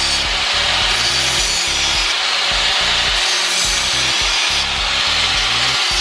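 Electric angle grinder with a thin disc grinding down the end of a metal motorcycle hand lever: a steady, loud grinding hiss over the grinder motor's whine, reshaping the lever to match another model.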